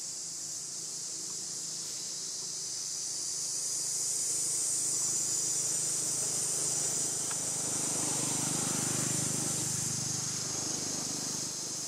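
Steady high-pitched insect chorus, a continuous shrill hiss that grows a little louder about four seconds in.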